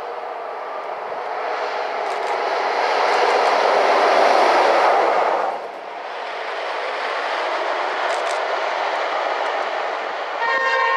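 Class 86 electric locomotive running on its own, its running noise building to a peak as it passes close, cutting off abruptly about halfway through, then continuing as a steadier running noise. Just before the end the locomotive sounds its horn, a steady multi-note blast.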